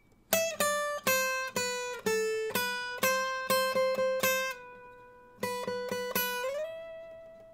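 Acoustic guitar playing a picked single-note riff, each note clearly struck, with one longer ringing note about two thirds through and a slide up to a held note near the end.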